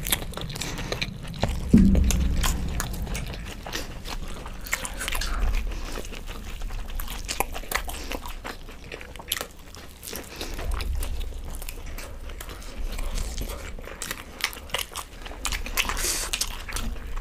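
Two people chewing and biting mooli paratha with aloo methi sabzi close to the microphone: steady wet chewing with many small, sharp mouth clicks.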